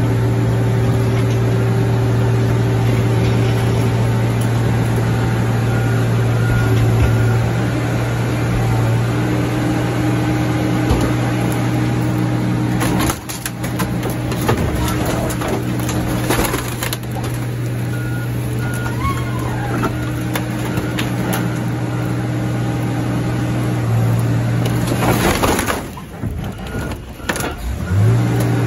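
A heavy diesel engine running steadily, with metal clanks and crunches as a scrap car is set down onto a stack of crushed cars in a car crusher's chamber, about halfway through and again near the end. The engine hum drops out for a couple of seconds near the end.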